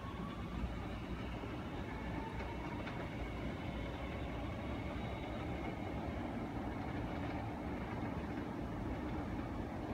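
CTA Red Line rapid-transit train pulling out of the station and moving away: a steady rumble with a faint whine that rises in pitch during the first few seconds.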